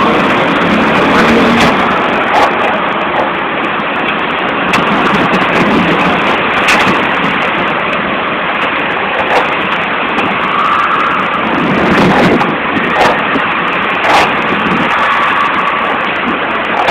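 Heavy storm rain pouring steadily, with scattered sharp taps of drops striking close by.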